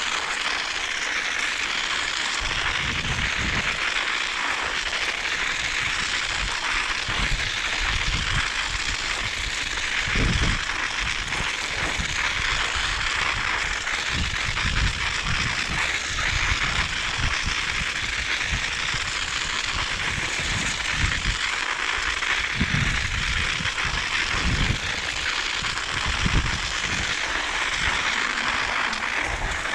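Bicycle tyres hissing and crackling over snow and ice while riding, with wind buffeting the microphone in irregular low gusts.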